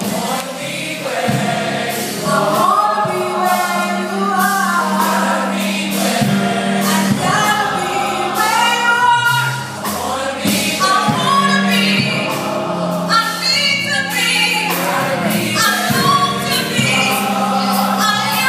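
Women's gospel choir singing.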